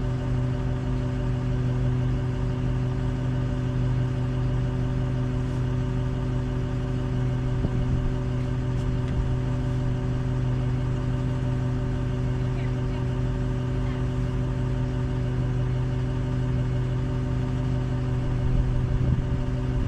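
Engine running steadily at an even idle, with no change in speed.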